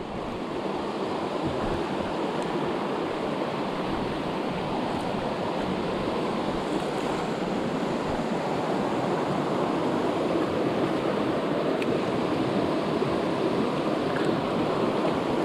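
A shallow, rocky creek rushing steadily over stones: a constant, even wash of water.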